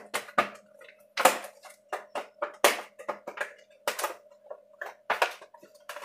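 Stiff plastic blister packaging being pried and torn open by hand: irregular crinkling crackles and clicks, with louder crackles about every second or so. A faint steady hum runs underneath.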